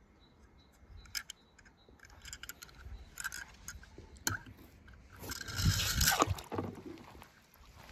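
Light clicks and scrapes of a die-cast toy tow truck being handled, with a louder scraping rush about five to six seconds in as it is set on and moves along a glitter-covered ramp.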